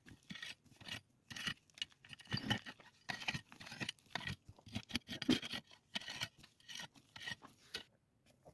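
Repeated rough scraping and rubbing strokes, several a second and irregular, stopping about a second before the end.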